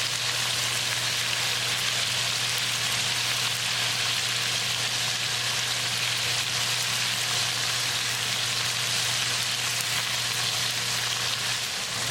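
Flour-coated chicken pieces deep-frying in hot vegetable oil: a steady, even sizzle and crackle of bubbling oil, with a faint low hum underneath.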